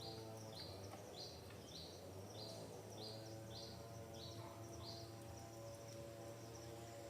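A bird calling a rapid series of short, high, evenly repeated notes, about two a second, that stops about five and a half seconds in, over a steady low hum.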